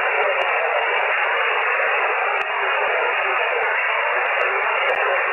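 Amateur shortwave receiver in single-sideband mode with no station coming through: steady rushing band noise, cut off above and below like a telephone voice channel. A few faint ticks sound over it.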